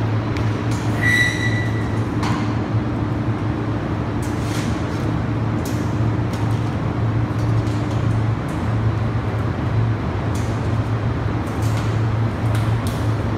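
Steady low hum under scattered clicks and knocks of sheet-metal air-conditioner housing panels being handled and fitted together, with a brief high whine about a second in.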